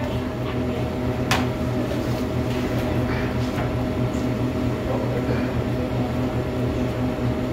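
Steady machine hum of room equipment, with a thin constant tone above it, and a single sharp click about a second and a half in.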